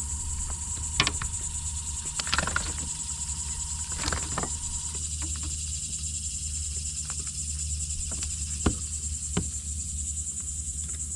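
Steady high-pitched insect chorus, with a few light clicks and knocks of fishing tackle being handled in a kayak.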